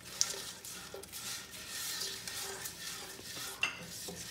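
Spatula stirring tomatoes and fried onion around a nonstick frying pan: repeated scraping strokes, with a sharp clink near the start and another, ringing one about three and a half seconds in.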